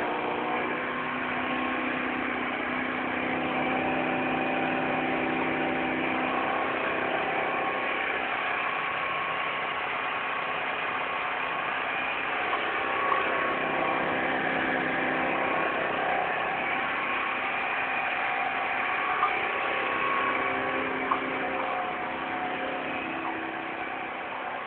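Motobi Rocky scooter's engine, fitted with a Malossi cylinder head, idling steadily, with a few light clicks.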